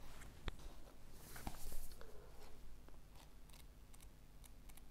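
Quiet handling of paper: a loose sheet and a paperback book rustling as the book is opened and its pages leafed through, with a couple of light taps in the first two seconds.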